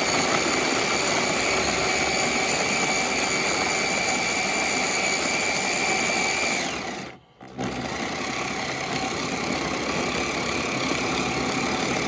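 Battery-powered Pampered Chef Flex+ food processor motor running steadily, its blade chopping Oreo cookies into crumbs. The motor stops for about half a second a little past the middle, then starts up again and runs on.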